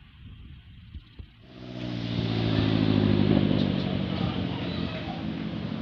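Bus diesel engine running close by: it swells up sharply about a second and a half in, peaks, then slowly eases off as the bus moves past.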